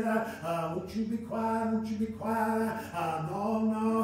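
A man's voice intoning in a sing-song chant, the chanted cadence of a preacher in full flow. He holds level notes in phrases of about a second, with short breaks between them and a drop to a lower note about three seconds in.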